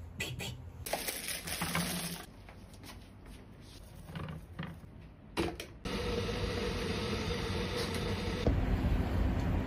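A few light clicks of porcelain teaware, then a steady rushing hiss with a hum from an electric kettle heating water. The hum drops lower about two and a half seconds before the end.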